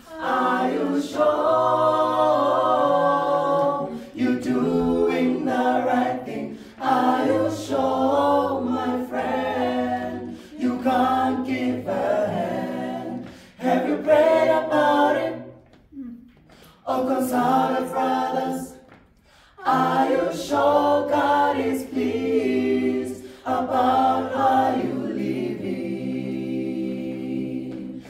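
Mixed a cappella group of men's and women's voices singing a sacred song in harmony without instruments, a low bass line held under the upper parts. The phrases are broken by two short pauses about halfway through.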